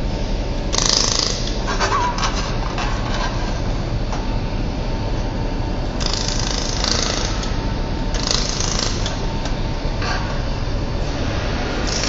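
Laser welding machine running with a steady mechanical hum, broken by several hissing bursts about a second long each.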